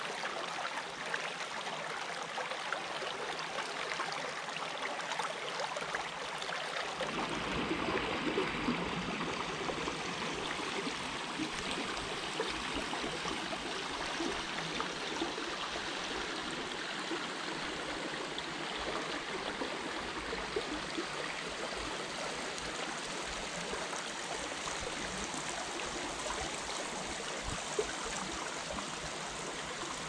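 Creek water running and gurgling over rocks, a steady wash that grows fuller and deeper about seven seconds in.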